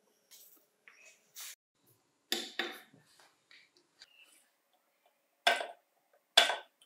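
Battery spot welder pulsing a metal connecting strip onto the ends of 18650 lithium-ion cells: short sharp snaps, a pair in quick succession about two and a half seconds in, then two louder ones about a second apart near the end. Faint clicks of the cells and strip being handled come in between.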